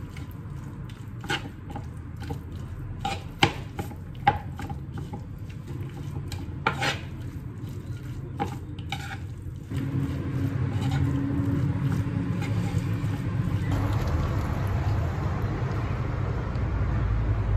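A metal spoon stirring and mixing bibimbap in a wooden bowl, with scattered clicks and scrapes of the spoon against the bowl. From about ten seconds in, a louder steady low hum takes over and the clicks thin out.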